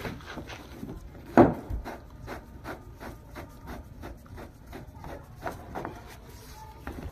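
Plastic tank nipple being twisted by hand into its hole in a plastic water tank: a run of short rubbing clicks of plastic against plastic and the rubber washer, several a second, with one louder knock about one and a half seconds in.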